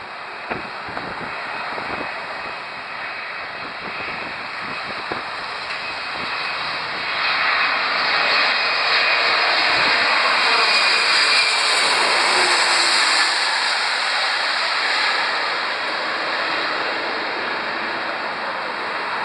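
A jet airliner on final approach passing low overhead. The engine noise builds over the first several seconds and is loudest in the middle, where its whine drops in pitch as the plane goes over, then it eases off a little toward the end. A few faint knocks come in the first few seconds.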